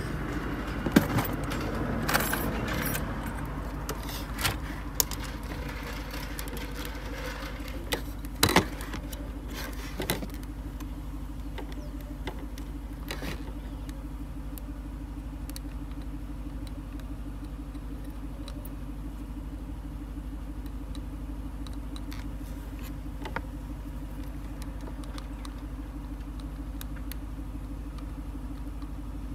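A vehicle engine idling steadily as a low hum, with scattered clicks and knocks in the first ten seconds or so as tools and the circuit board are handled.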